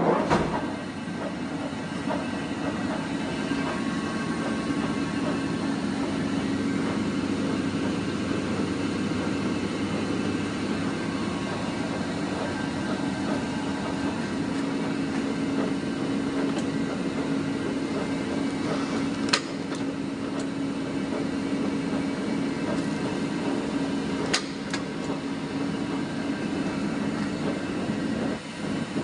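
A large VDF engine lathe running, its big four-jaw chuck and flange workpiece spinning, with a steady mechanical hum and a constant low tone from the headstock drive. Two short sharp clicks come about two-thirds of the way through.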